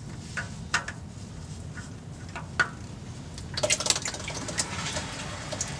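Engine oil dripping and splattering into a drain pan as the spin-on oil filter is unscrewed. A few separate drips come first, then a short burst of splashing about three and a half seconds in.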